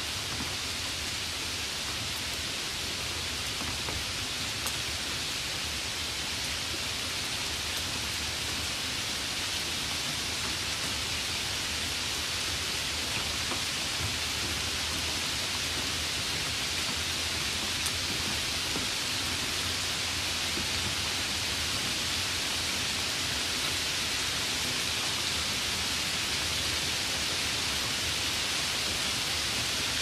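Steady rainfall, an even hiss without breaks or pauses.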